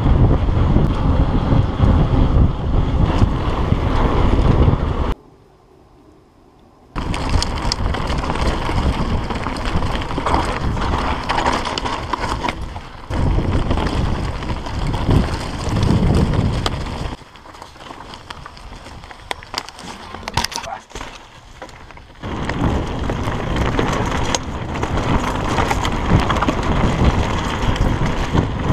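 Wind buffeting the microphone of a camera mounted on a hardtail mountain bike, with tyre rumble and rattle as the bike rolls over tarmac and dirt trail. The noise drops sharply for about two seconds about five seconds in, and is quieter for a few seconds past the middle.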